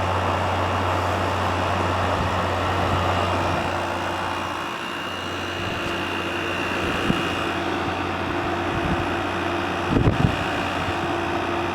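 Midea 5000 BTU window air conditioner running in cooling mode: a steady low compressor hum under the even rush of its fan. It is cooling properly, the coil cold and the charge good. A few low knocks about ten seconds in.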